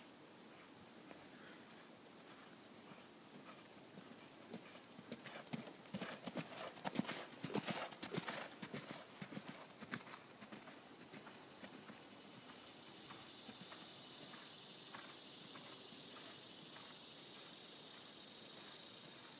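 Hoofbeats of a grey horse cantering on sand arena footing, growing louder as it passes close by and loudest about seven seconds in, then fading as it moves away. A steady high-pitched hiss sits behind throughout.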